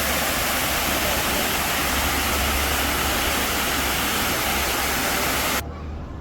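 Steady loud rushing noise with a low hum beneath. It cuts off suddenly about five and a half seconds in, leaving much quieter background sound.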